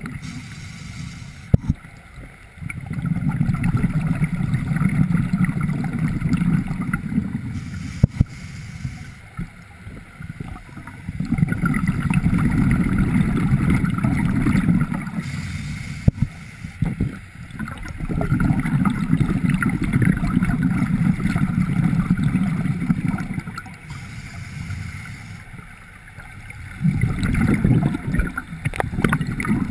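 Scuba diver breathing through a regulator underwater: about four slow breaths, each a short hiss from the regulator on the inhale followed by several seconds of rumbling, gurgling exhaled bubbles.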